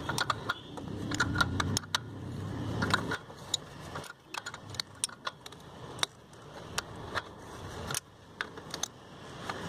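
Ring spanner clicking and clinking on the camshaft sprocket bolt of a Maruti 800 engine as the engine is turned over by hand. This is the half-turn that brings the next valves into position for tappet adjustment. Sharp metallic clicks come at irregular intervals, with a low rumble during the first three seconds.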